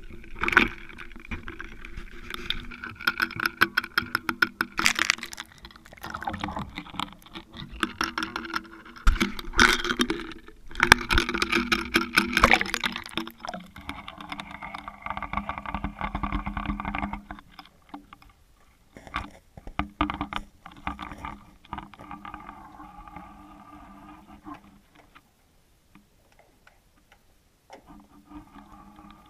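Handling noise from an underwater camera being lowered on its cable through a hole in lake ice: a dense run of knocks, scrapes and clicks as it bumps the ice and water. About halfway through it gives way to a quieter, muffled underwater sound with a few scattered knocks.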